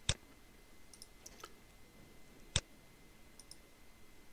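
Computer mouse button clicking: two sharp clicks about two and a half seconds apart, with a few faint ticks in between.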